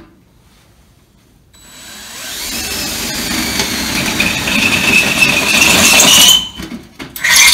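DeWalt cordless drill boring a hole into a black metal chimney-pipe fitting. It starts about a second and a half in, the whine and grinding growing louder and rising in pitch as the bit bites, and stops sharply about six seconds in. A short, loud second burst comes near the end.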